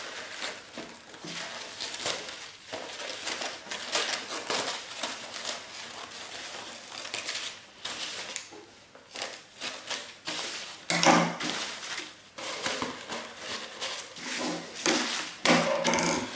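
Scissors snipping through crepe paper, with the paper rustling and crinkling as it is handled. The crinkling is louder from about eleven seconds in, when the paper-covered cone is picked up and moved.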